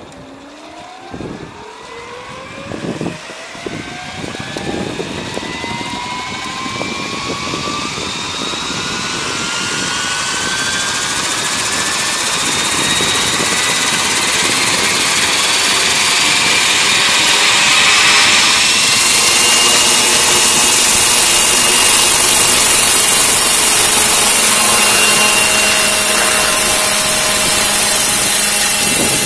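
Radio-controlled scale MD 530 model helicopter spooling up: a whine rising steadily in pitch for about twenty seconds, then holding steady at flight speed as the helicopter lifts off.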